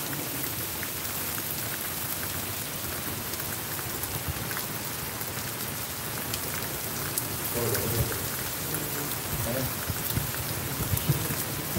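Steady rain falling on a wet paved courtyard: an even hiss with scattered close drop ticks. Faint voices murmur briefly about two-thirds of the way in.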